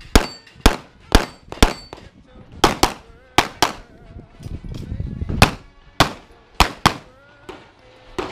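Pistol shots: sharp cracks about twice a second for the first two seconds, then a dozen or so in all at uneven spacing, several followed by a brief high ring from steel plates being hit.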